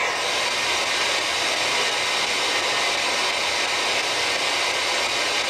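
Steady static hiss from a spirit box, a radio scanning device, cutting in abruptly and holding at an even level.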